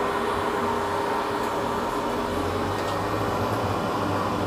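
Mercedes-Benz Sprinter City minibus standing at a stop with its diesel engine idling, a steady mechanical hum with a constant whine over it. A deeper hum comes in a little past halfway.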